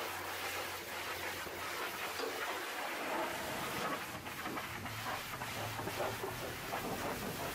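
Pressure-washer jet spraying a steady hiss of water against the muddy steel underside of a raised dump-truck bed, the sound flickering as the lance moves over the frame.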